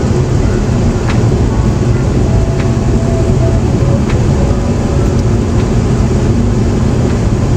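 Steady low rumble of a moving car heard inside the cabin: road and engine noise, with a few faint clicks.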